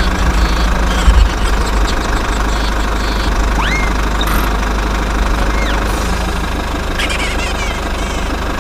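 Engine running steadily with a deep, continuous rumble, with a few short whistle-like glides over it, one rising sharply near the middle.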